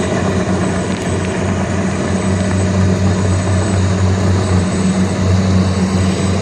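Kubota DC-120X rice combine harvester running steadily, its diesel engine giving a constant low drone.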